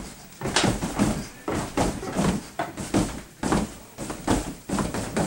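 Taped bare fists punching an upright mattress: a run of dull thuds, about two a second and unevenly spaced.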